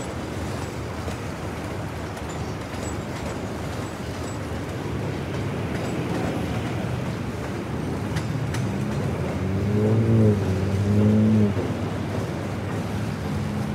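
Freight train of tank cars and a boxcar rolling past, with a steady rumble of wheels on rail. From about eight seconds in, a motor vehicle engine joins over it, its pitch wavering and loudest a little past halfway.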